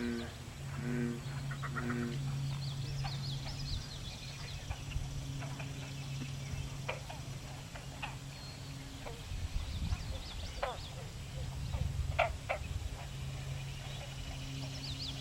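Least Bittern calling: a short series of about four low, evenly spaced notes in the first two seconds. High chirps of other birds and a low steady drone sound underneath.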